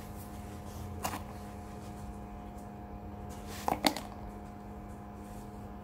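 Small handling noises as a brake caliper guide pin is wiped with a shop towel: a light click about a second in and a quick cluster of clicks and knocks a few seconds later. A steady low hum runs underneath.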